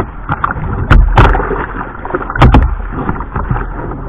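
Sea water rushing and splashing against a whitewater kayak's deck as it is paddled through surf, close to the microphone. Sharp, loud splashes hit about a second in and again around two and a half seconds.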